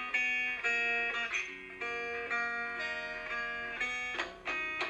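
Background music: a plucked guitar melody with clear single notes, several changes of note each second.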